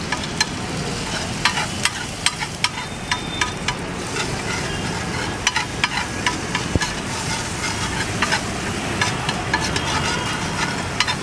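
A metal spatula scraping and clicking against a flat griddle as it stirs egg with chopped spring garlic and coriander, over a steady sizzle of frying. The clicks come irregularly, several a second.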